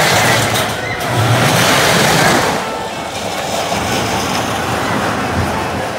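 Crazy Loop steel roller coaster train rushing along its track through the loop, a loud rushing rumble that eases off about two and a half seconds in.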